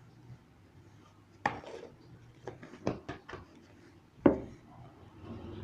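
A few sharp clicks and knocks from handling a plastic glue bottle as it is opened over a slime bowl, the loudest about four seconds in.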